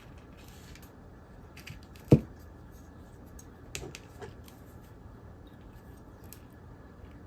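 Small metal parts of a dismantled TV switchbox clicking and clinking as they are handled and worked loose, with a sharp knock about two seconds in and another near the end.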